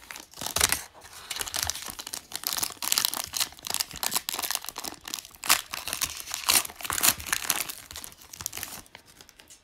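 Foil wrapper of a Panini Prizm Draft Picks football card pack crinkling and being torn open by hand: a dense run of crackles that thins out near the end.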